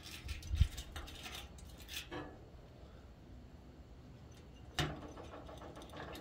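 Electrical wires being pushed through into a metal electrical box, giving small clicks, rattles and scraping of wire against metal. The clicking clusters in the first two seconds, and there is one sharper knock about five seconds in.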